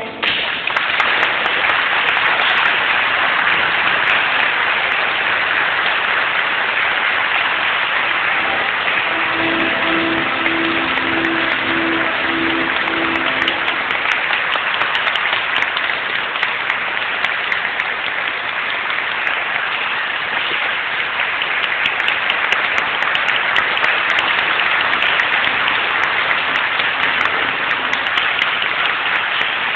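Congregation clapping: steady, dense applause throughout, with a faint run of short repeated notes about a third of the way in.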